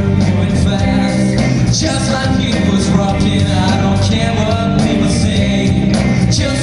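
Rock band playing live, with electric guitar, bass and drums keeping a steady beat.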